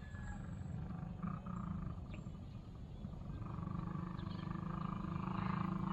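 Electric motor and propeller of a Swift-One Sky Challenger QIDI-550 RC plane droning steadily in flight, with a higher whine coming in about halfway and the sound growing louder toward the end.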